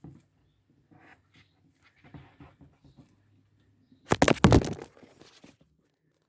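Powerslide HC EVO Pro inline skate boot and its metal cuff buckle being handled: scattered light clicks and knocks, then a loud, rapid clattering rattle lasting under a second about four seconds in.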